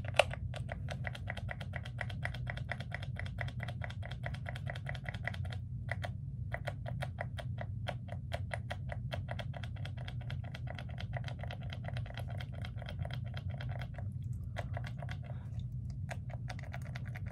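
Small perfume spray bottle's pump being pressed over and over, a fast run of sharp plastic clicks at about five a second with two short pauses and sparser clicks near the end. Its user guesses the sprayer is broken.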